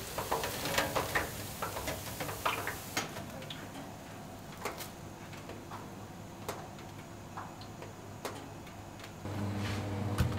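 Freshly fried falafel tipped from a perforated frying ladle onto a steel draining tray: hot oil hissing as it streams off, with the falafel clattering onto the metal. This stops suddenly about three seconds in, and scattered light clicks follow. Near the end a steady low hum starts.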